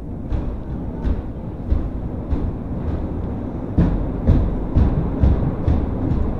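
Amusement-park ride car rolling along its rail track, with a low rumble and a regular clacking of about three clicks a second that grows louder about four seconds in.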